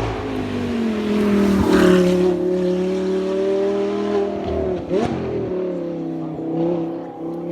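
Race car engine at full throttle on a hillclimb, passing close: its note is loudest and drops in pitch about two seconds in, then dips and picks up again with a gear change about five seconds in as it pulls away up the hill.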